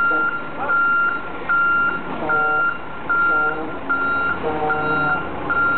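Large forklift's reversing alarm beeping steadily while the truck backs up, about one and a quarter beeps a second, each beep a single steady tone.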